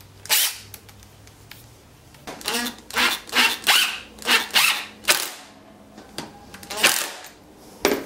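Makita 18-volt cordless impact driver driving screws into a wooden block, in about ten short bursts: one near the start, a quick run of them in the middle and two more near the end.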